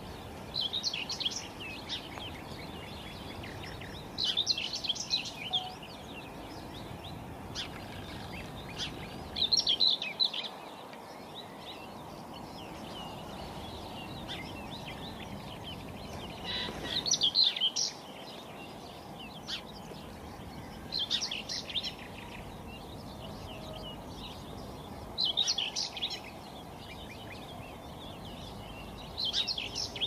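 A songbird singing short, bright phrases, repeated every four seconds or so, over a steady low background noise.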